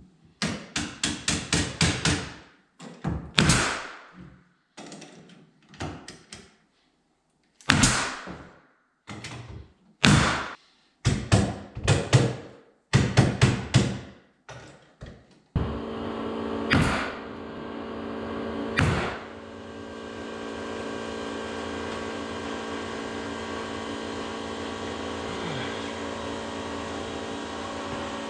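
A run of sharp strikes as window trim is fastened, several coming quickly one after another, then scattered single blows. About halfway through a steady motor starts running with a constant hum, and two more strikes land over it.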